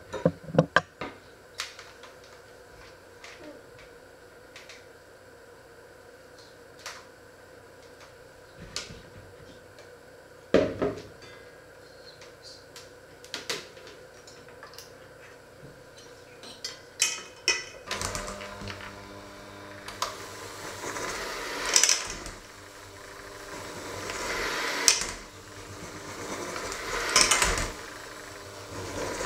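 Scattered knocks and clinks for the first half. About eighteen seconds in, an electric hand mixer with dough hooks starts kneading dough in a stainless steel bowl: a steady motor hum that swells and eases every few seconds as the hooks work the dough.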